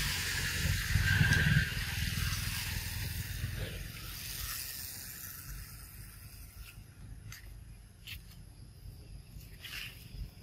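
Outdoor ambience: a low rumble that is loudest in the first two seconds and then fades, then a few short, sharp high sounds in the second half.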